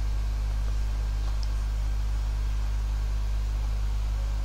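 Steady low electrical hum with an even hiss underneath: the background noise of the recording during a pause in speech.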